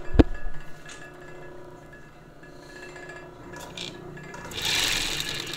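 A thump just after the start, then the clutch motor of a Merrow A-3DW-3 industrial overlock machine humming at idle with a faint rattle from the thread stand. About four and a half seconds in, the machine starts sewing, louder and busier than the idle.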